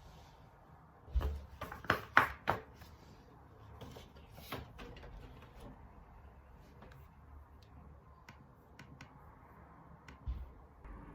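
Handling noises in a quiet room: a cluster of sharp knocks and clatters about a second in, a few more around four to five seconds, then scattered light clicks and a dull thump near the end.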